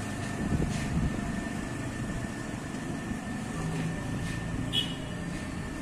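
A steady low mechanical rumble from an unseen motor, with a faint steady high whine and a few light clicks.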